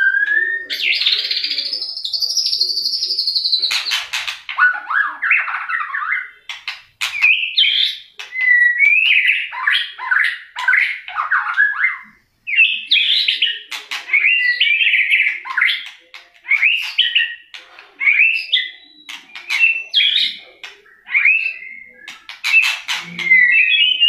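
White-rumped shama singing a varied song of quick whistled phrases that sweep up and down in pitch. It opens with one long high whistle held for about three seconds, and sharp clicks are scattered among the phrases.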